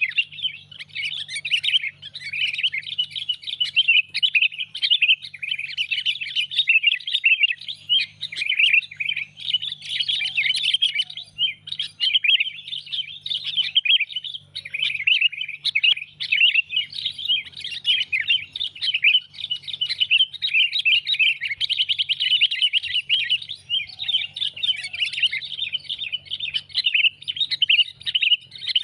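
Sooty-headed bulbuls (kutilang) chattering and calling without a break, many quick overlapping chirps that make a dense, excited lure call for drawing in wild bulbuls. A faint low hum comes and goes underneath.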